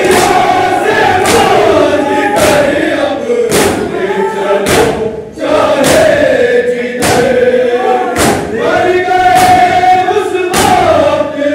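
Crowd of men chanting a noha in unison, with a loud, united chest-beating slap (matam) about every second and a bit, keeping the beat of the chant.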